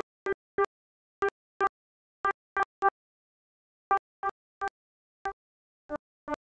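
Bugle notes heard only as short broken fragments, two or three clipped blips a second with dead silence between them, as if the sound track keeps dropping out.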